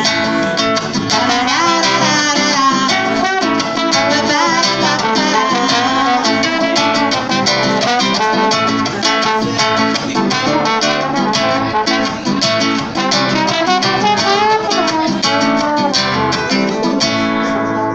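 Strummed acoustic guitar with a slide trombone playing the melody over it, its notes sliding up and down. The strumming thins out near the end.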